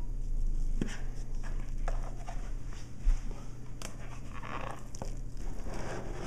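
Thick peanut butter loaf batter scraped out of a bowl into a metal loaf pan with a utensil: irregular soft scrapes and light clicks, with one sharper knock about three seconds in, over a steady low hum.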